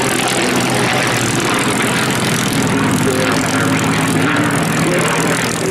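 Supermarine Spitfire's piston engine running steadily at low power as it taxis past, with its propeller turning.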